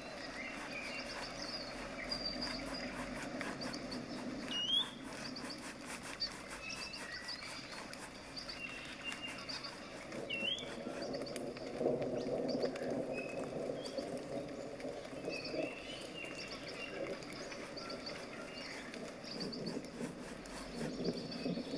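Flat bristle brush scrubbing acrylic paint across a stretched canvas in repeated strokes, a soft scratchy rasp. Small bird chirps sound in the background.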